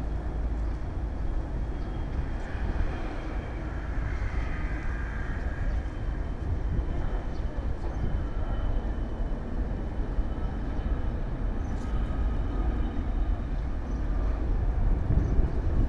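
Cessna business jet touching down and rolling out on the runway: a faint engine whine slowly falling in pitch over a steady low rumble.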